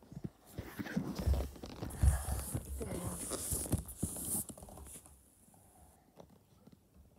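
Soft rustling with a few low thumps and clicks, dying away to near quiet about five seconds in.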